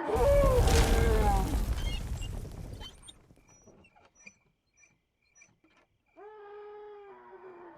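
A man's drawn-out cry of alarm over a loud crash with a low rumble, fading away over about two seconds. Near the end a steady pitched tone comes in.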